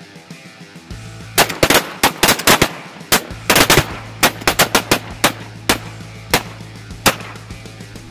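A rapid, uneven volley of shotgun blasts, about twenty shots between a second and a half in and seven seconds in, several guns firing over one another. Music plays steadily underneath.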